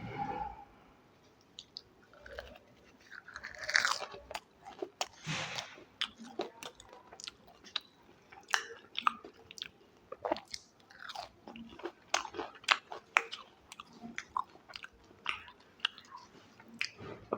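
Close-miked eating: a person biting and chewing fried street food, with irregular crisp crunches and clicks, the loudest bites about four and five and a half seconds in.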